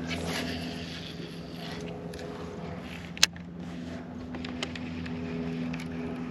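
Steady low hum of a bass boat's electric trolling motor, with the handling noise of a baitcasting reel being cast and reeled in, and a single sharp click about three seconds in.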